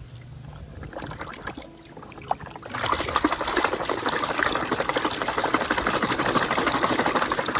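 Water pouring and splashing over toys being washed. It is light at first and becomes a loud, steady spatter from about three seconds in.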